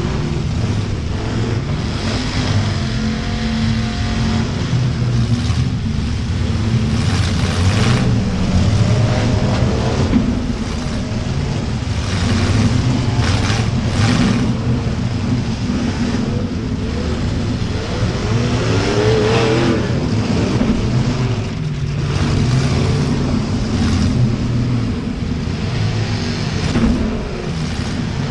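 Several demolition derby cars' V8 engines running and revving hard together, their pitch rising and falling, with a few sharp knocks from car-to-car hits.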